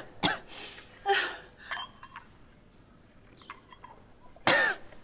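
A woman coughing in short bursts, choking on spicy food, with a louder cough about four and a half seconds in. Light clinks of dishes and cutlery in between.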